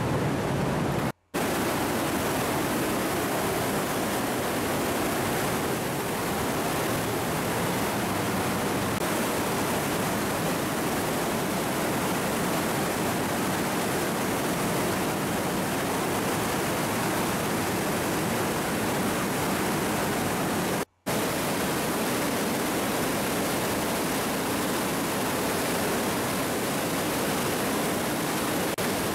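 Steady rush of water in a rocky glacier gorge, cascading water with no other sound over it. It cuts out to silence for an instant twice, about a second in and about twenty-one seconds in.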